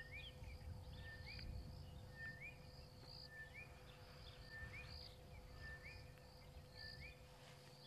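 Faint outdoor bush sound: a bird calling over and over, about once a second, each call a short level whistle that jumps into a quick rising note. A faint steady hum and low rumble lie under it.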